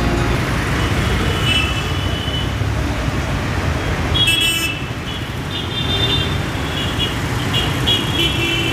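Steady road traffic noise with vehicle horns honking several times, more often in the second half. There is a brief sharp hiss about four seconds in.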